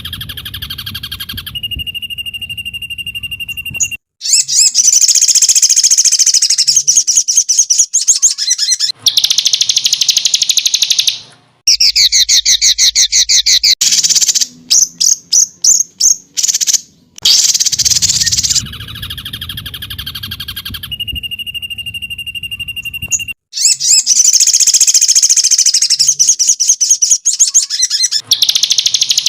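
Songbird masteran recording: loud, high-pitched rapid trills and chirp series in edited blocks that start and stop abruptly. The sequence loops and comes round again about two-thirds of the way through.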